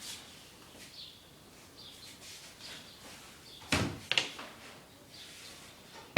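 A kitchen cabinet being opened and shut, giving two sharp knocks close together a little after halfway through. Faint bird chirps sound in the background.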